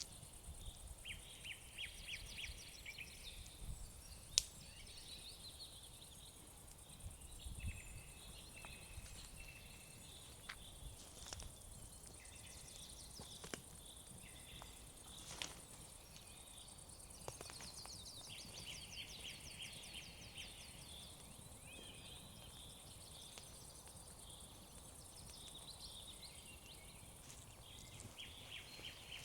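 Night insects chirping faintly in short trills of rapid ticks, repeated every few seconds over a faint steady hiss, with a few isolated sharp clicks.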